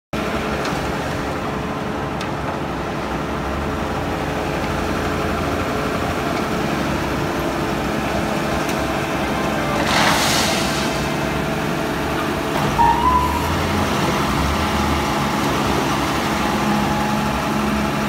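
Engines of a wheel loader and a truck-mounted concrete mixer pump running steadily. About ten seconds in, a brief rush of gravel sounds as the loader's bucket tips stones into the mixer's hopper, and a short high tone follows a few seconds later.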